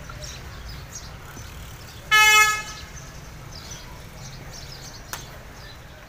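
A vehicle horn sounds once, a short steady toot of about half a second, over a steady low background rumble. A single sharp click comes about five seconds in.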